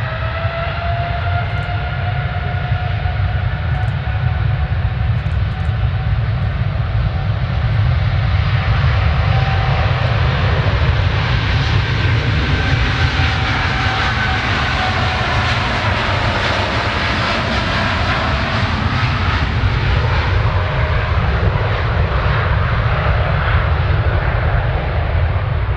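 Airliner's engines passing close by: a whine of several steady tones over a deep rumble. The roar builds and peaks about halfway through, and the tones slide down in pitch as the aircraft goes past.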